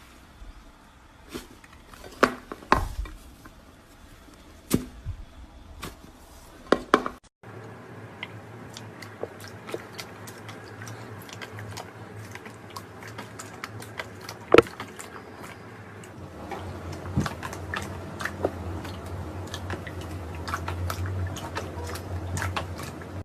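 Slime being squeezed and worked by hand: wet squishing with many sharp clicks and pops. About seven seconds in there is a brief break, and the sound carries on over a steady low hum.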